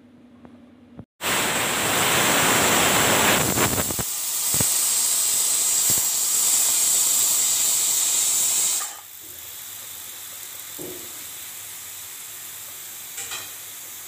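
Pressure cooker whistle: steam bursting out through the weight valve on the lid with a loud hiss that starts suddenly about a second in, then drops to a softer steady hiss after about eight seconds as the release eases off.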